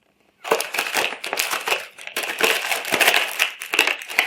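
Snack packaging crinkling and crackling as it is handled and opened, a dense run of sharp crackles that starts about half a second in.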